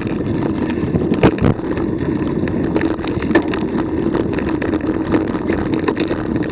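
Wheels rolling fast over a bumpy dirt trail: a steady rolling rumble with wind on the microphone, broken by sharp knocks and rattles from bumps, two close together about a second in and another about three seconds in.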